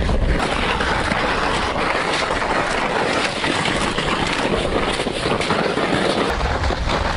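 Wind buffeting the microphone while moving across the ice, with faint irregular crunching underneath.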